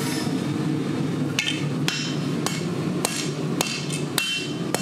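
Hand hammer striking a red-hot bar of 80CrV2 steel on an anvil: blows begin about a second and a half in and come about every half second, each with a short metallic ring, as the point of a chef's knife is forged. A steady low hum runs beneath.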